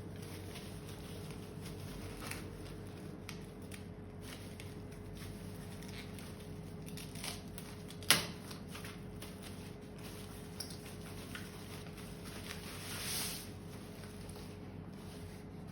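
Packaging being handled during an unboxing: light rustles and small clicks, one sharp tap about eight seconds in and a short sliding rustle a little later.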